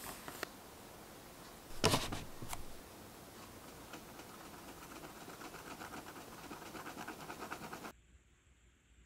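Metal tweezers scratching and scraping at a pressed eyeshadow pan, crumbling the powder, with a single knock about two seconds in. The scraping turns quick and rhythmic from about four seconds in and cuts off suddenly near the end.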